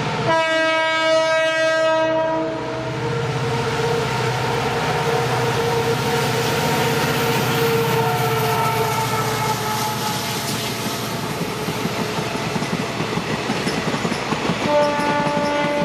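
EMD GT46MAC (WDG4) diesel-electric locomotive passing at speed with a long passenger train. Its horn sounds several tones at once from about a second in and stays on, falling slightly in pitch as the locomotive goes by. Beneath it are the deep rumble of its two-stroke V16 engine and the clatter of coach wheels over the rails, and a second horn blast starts near the end.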